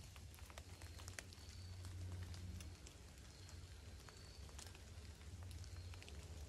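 Quiet woodland ambience: many faint, scattered ticks over a low steady hum, with a short high chirp about every second and a half.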